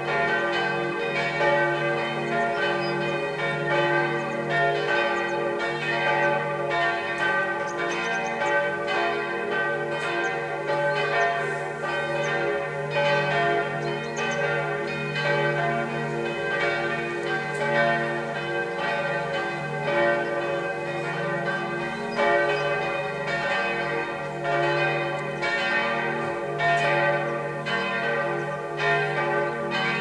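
Church bells of St. Peter, Heppenheim, ringing together in a full peal: the strikes of several bells overlap without a break, their tones hanging on between strokes.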